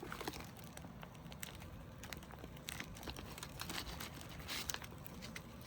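Plastic packaging of a squishy toy crinkling as it is handled, a scatter of soft irregular crackles.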